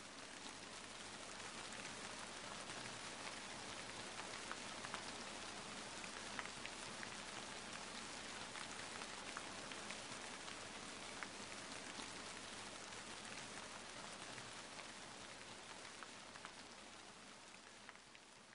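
Rain falling steadily, with scattered drops tapping. It swells in over the first couple of seconds and fades away near the end.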